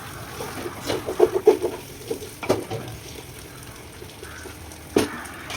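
A spoon stirring curd into a thick onion and spice masala in a cooking pot, scraping and knocking against the pot's sides several times, with a faint sizzle underneath.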